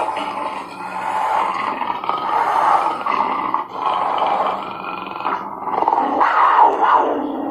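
Black panther growling in long, rough stretches, with short breaks about three and a half and five and a half seconds in; loudest near the end.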